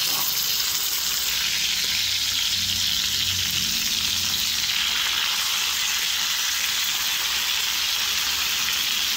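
Seer fish steaks shallow-frying in hot oil on a flat iron griddle: a steady, even sizzle.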